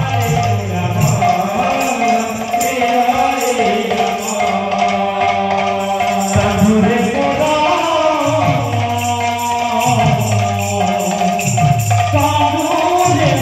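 Kirtan devotional music: jingling hand cymbals keep a steady beat over drum strokes and a sung or played melody.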